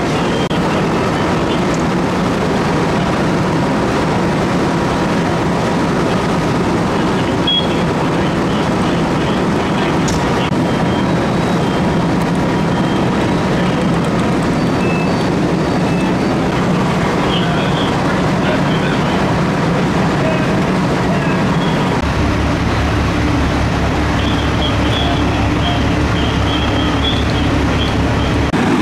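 Fire engine diesel engines running steadily. About 22 seconds in, the sound changes to a deeper, throbbing engine rumble from a fire engine close by.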